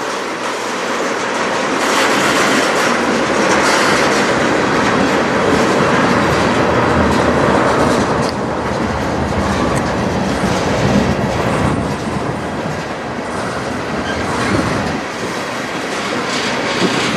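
Freight cars of a CN manifest train rolling past, a steady rumble with wheels clacking over the rail joints.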